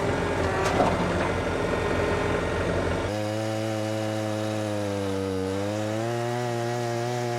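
Gasoline chainsaw running at speed cutting into a log, the sound turning to a steadier, cleaner engine drone about three seconds in, its pitch sagging slightly and recovering.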